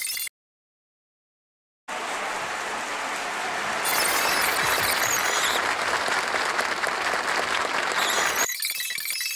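Audience applause, starting abruptly about two seconds in, growing louder a couple of seconds later, and cut off sharply near the end. High, glassy tinkling sounds ring over it for a moment midway and are heard alone briefly at the very start and near the end.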